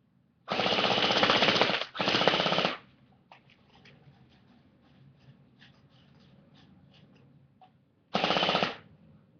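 Airsoft gun firing on full auto in three bursts: a long one of about a second and a half, a shorter one straight after, and a brief one near the end, as the magazine is emptied.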